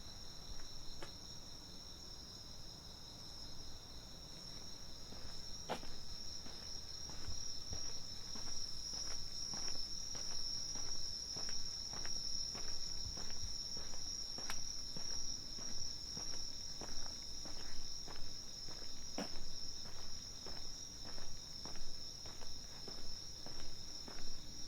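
A steady, high-pitched chorus of night insects chirring without a break. About a quarter of the way in, a walker's footsteps come in at an even pace of about two steps a second and grow louder.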